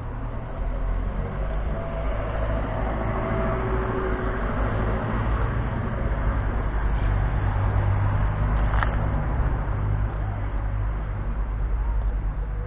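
Steady low rumble with a broad hiss over it, and one sharp click about nine seconds in.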